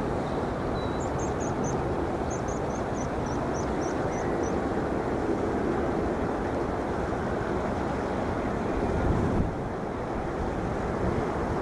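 Boeing 747 freighter's jet engines running at low power as it taxis past, a steady broad rumble. A run of short high chirps comes between about one and four and a half seconds in. The noise dips slightly about nine and a half seconds in.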